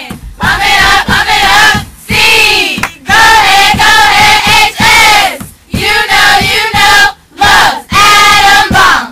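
A group of high-school cheerleaders shouting a cheer in unison, in short loud chanted phrases with brief breaks between them.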